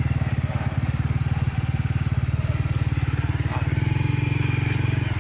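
Motorcycle engine running steadily, its firing pulses evenly spaced.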